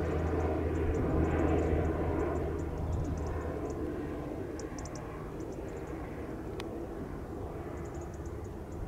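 Distant airliner jet engines rumbling across an airfield, with a low steady hum that slowly fades over the first half. Short, high chirps come in small clusters throughout, and there is a single sharp click about two-thirds of the way in.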